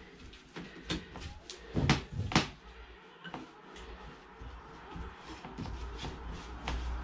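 Paintbrush dabbing and scrubbing polyester resin onto a boat's floor, with scattered clicks and knocks; the two loudest come half a second apart about two seconds in.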